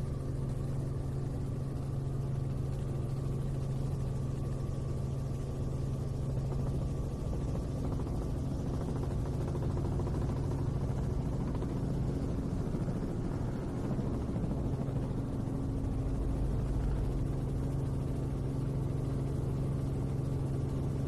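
Helicopter heard from inside its cabin: a steady engine and rotor drone, a constant low hum with a few held higher tones, unchanging throughout.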